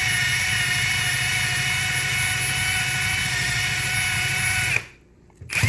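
Drill running steadily while it spins a 3M eraser wheel against a vinyl decal on a personal watercraft's fiberglass hull, scrubbing the decal off. The drill stops abruptly about a second before the end, and a brief loud noise follows at the very end.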